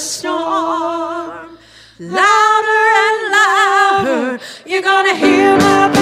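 Worship singing: a voice holds long notes with vibrato, with short breaks between phrases and little accompaniment, and fuller backing comes in near the end.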